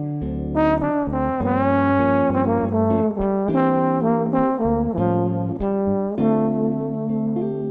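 Trombone playing a solo melody over guitar accompaniment in a bossa nova. It moves note to note, with a rising slide about a second and a half in.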